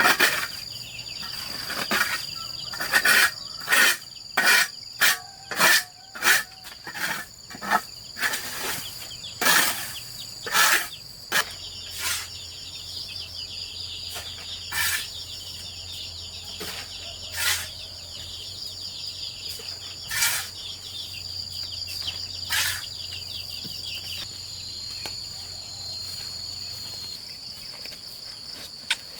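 Insects trilling steadily, a continuous high-pitched trill. Over it come short sharp knocks: rapid and loud in the first ten seconds or so, then only every few seconds.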